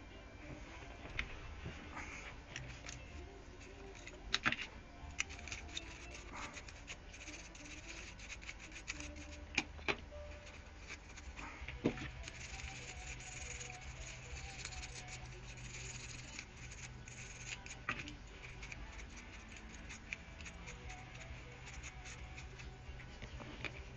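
Scattered clicks, taps and light scraping of small hard parts and tools being handled, over a steady low hum.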